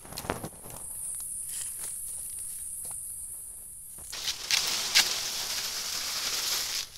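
Steady high-pitched drone of insects in the undergrowth, then about four seconds in, rustling and crunching in dry leaf and pine-needle litter with a sharp scrape or snap about a second later.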